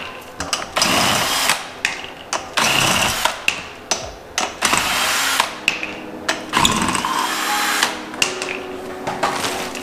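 Cordless drill with a lug-nut socket spinning the lug nuts off a car's front wheel, in several short runs of the motor with pauses between.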